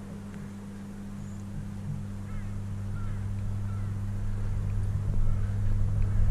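A steady low hum, growing louder, over a rushing noise, with a few faint bird-like chirps.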